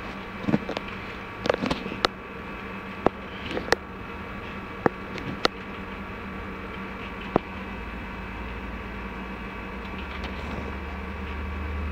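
Computer mouse clicking, a sharp click every second or so over the first eight seconds, over a steady electrical hum from the office machines. A low rumble swells in about eight seconds in and grows louder near the end.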